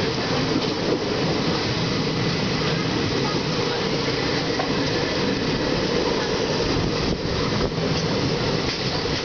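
Indian Railways express passenger coaches rolling slowly past on the adjacent track, a steady rumble of wheels on rail.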